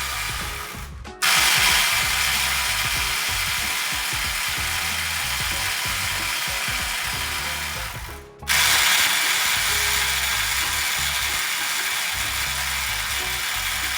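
DeWalt DCF845 cordless impact driver hammering continuously on 150 foot-pound bolts in a breakaway test. It stops briefly about a second in and again about eight seconds in, then starts hammering again.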